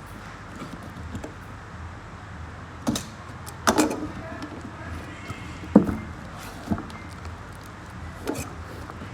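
A handful of separate knocks and clatters, typical of things being handled, over a steady low hum. The loudest come about three and a half seconds in and again near six seconds.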